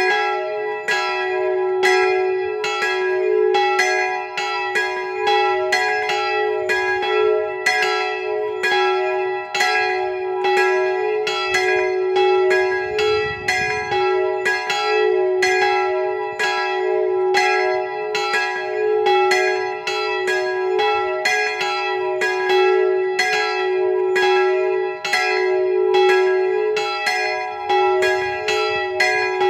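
Three swinging church bells, which the uploader takes for Jan Felczyński castings, ringing together in a continuous peal of overlapping strikes. The smallest bell's clapper strikes twice per swing, a double strike.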